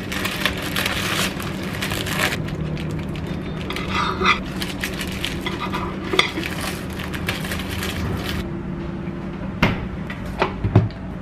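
Plastic bag of sliced bread rustling and crinkling as it is opened and handled, with a few sharp clicks and light knocks near the end.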